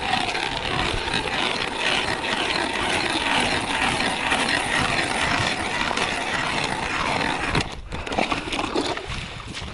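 Hand ice auger being cranked down through the ice, its blades grinding and scraping steadily, with a short break about eight seconds in.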